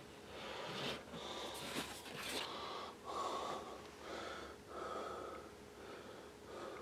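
A man breathing close to the microphone, soft rhythmic breaths in and out about once a second.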